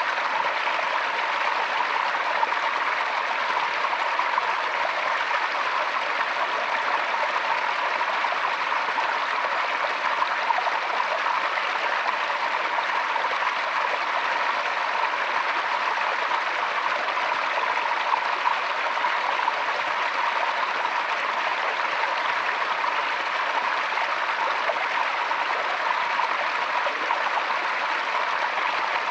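Forest stream flowing steadily, water rushing and babbling over stones.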